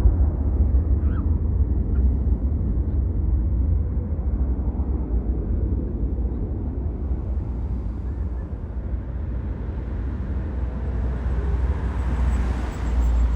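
Jet engines of BAE Hawk trainers in a display pass: a low rumble that eases off through the first half, then swells again with a rising hiss and is loudest near the end.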